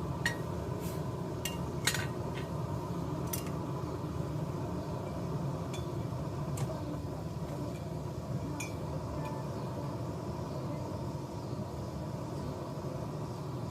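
Blacksmith's forge running with a steady low rumble while the nail stock reheats, with scattered light metallic clinks of tongs and steel, a dozen or so, the loudest about two seconds in.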